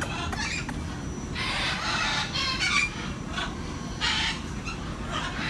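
Umbrella cockatoo squawking in harsh calls: a long run of calls from about one to three seconds in, and a short one about four seconds in.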